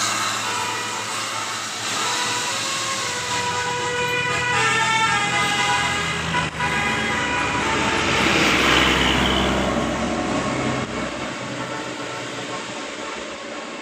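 Bus telolet horn, a multi-tone musical horn, sounding in a run of short notes at shifting pitches over engine and traffic noise. A louder rush with a deep rumble swells about eight to ten seconds in, then fades.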